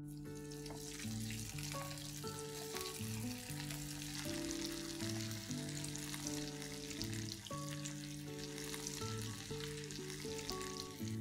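Cubes of leftover idli deep-frying in hot oil, a dense crackling sizzle, under background music.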